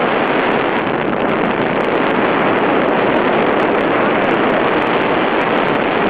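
Steady, loud rushing noise of skiing downhill: wind over the camera's microphone mixed with skis sliding on hard-packed snow.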